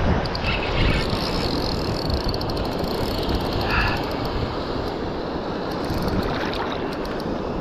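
Shimano Stradic 5000 spinning reel's drag ticking rapidly as a hooked snook runs and pulls line off the spool, over a steady rush of wind on the microphone and surf.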